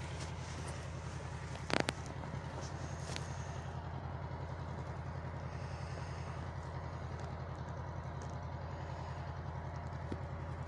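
Fire burning under a wrecked military truck, with one sharp pop about two seconds in and a few faint ticks later, over a steady low rumble.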